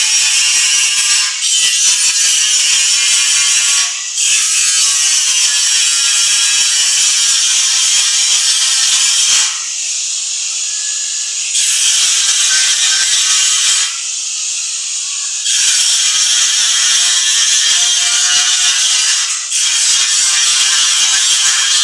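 Angle grinder working steel, a loud continuous grinding hiss with a steady motor whine underneath. The grinding eases off briefly a few times, and twice for about two seconds.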